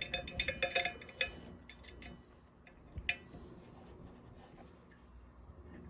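Light metallic clinks and ticks of metal bike parts and tools being handled: a quick run of them in the first second or so, and one more about three seconds in.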